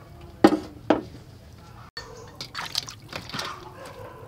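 Two sharp knocks near the start, then water splashing and dripping as hands move live crabs around in a steel bowl of water.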